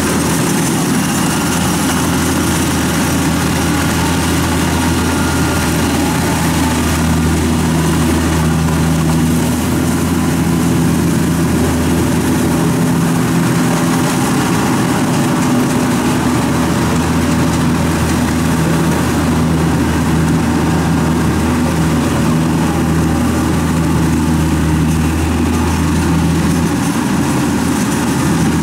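Kubota DC-70 combine harvester running steadily while harvesting rice: its diesel engine and threshing machinery make a constant drone.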